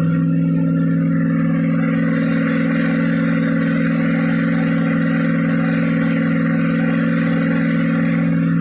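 Freshly rebuilt 1972 Pontiac 350 V8 running at a steady, raised engine speed: a loud, even drone that holds one pitch throughout.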